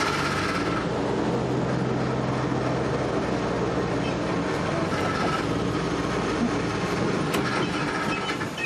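Engine of an Army Duck (DUKW) amphibious vehicle running steadily while it drives, heard from aboard, with two brief sharp knocks about five and seven and a half seconds in.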